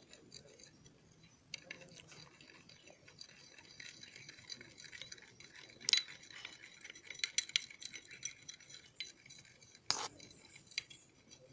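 A metal spoon stirring a pale paste in a glass bowl, scraping and clinking lightly against the glass. The sharpest clink comes about six seconds in, with another near ten seconds.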